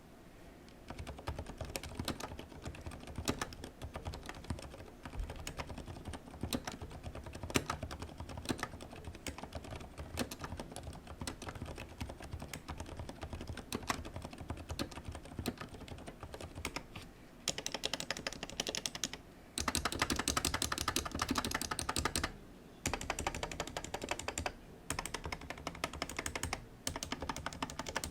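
Typing on a Ninja87 custom mechanical keyboard fitted with Cherry silent red switches: a continuous run of fast keystrokes, turning into denser, louder bursts of rapid key presses in the second half.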